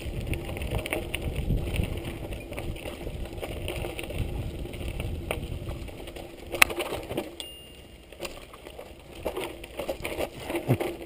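Giant Boulder 0 29er mountain bike rolling down a dirt singletrack: the tyres crunch over dirt and leaf litter, and the bike rattles with many small knocks from the bumps. There is one sharp knock a little past halfway, and the sound gets quieter from about seven seconds in.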